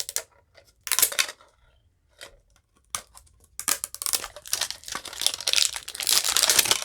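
Plastic wrapping on a tin being crinkled and torn by hand: a few short rustles, then about three seconds of continuous crinkling and tearing.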